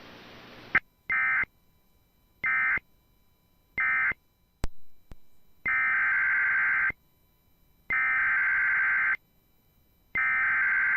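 Emergency Alert System SAME data bursts from a weather radio broadcast: three short buzzy digital bursts, the end-of-message code closing one warning, then a sharp click, then three longer bursts, the header code that opens the next warning.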